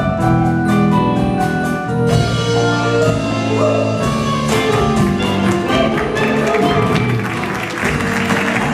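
Live orchestral music: held instrumental notes over steady percussion, growing denser and brighter about halfway in.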